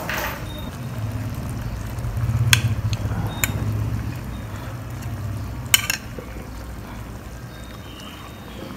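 Metal spoon stirring through thick squid-ink adobo sauce on a ceramic plate, with three sharp clinks of spoon on plate, the loudest past the middle. A low steady rumble runs underneath.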